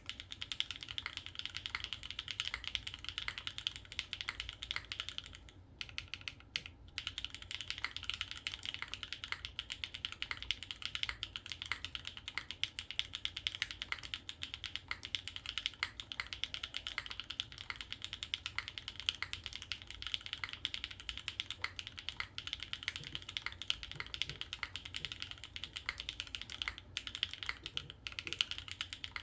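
Fast continuous typing on a 60% mechanical keyboard with Gateron Deeping linear switches, a polycarbonate plate, no foam and GMK keycaps: a dense stream of key clacks, pausing briefly about six seconds in and again near the end.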